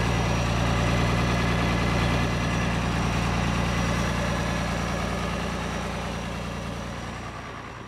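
IHC 1206 tractor's turbocharged six-cylinder diesel idling steadily, then fading away over the last few seconds.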